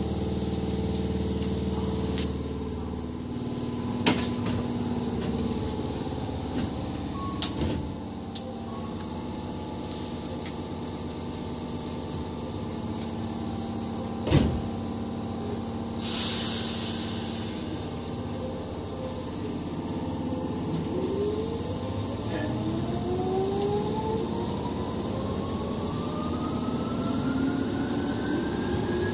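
Tokyu 8500 series electric train standing at a station, then pulling away. It starts with a steady equipment hum and a few sharp clicks, and a short air hiss comes a little past halfway. In the last third the traction motors' whine rises steadily in pitch as the train accelerates.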